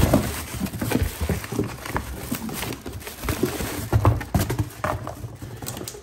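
Cardboard boxes and packaging rustling and knocking as they are rummaged through by hand, an irregular jumble of rustles, taps and thumps.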